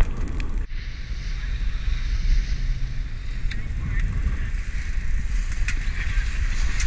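Fishing boat under way: a steady low engine rumble with water rushing past the hull and wind buffeting the microphone, and a few short clicks.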